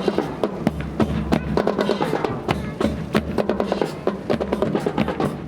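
Music with drums and percussion: a dense run of sharp, irregular drum hits over a steady low bed.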